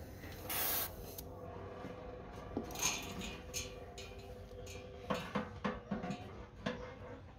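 A gas welding torch hisses briefly about half a second in. In the second half a small metal hand tool scrapes and knocks several times against the torch-joined seam of the steel motorcycle fuel tank.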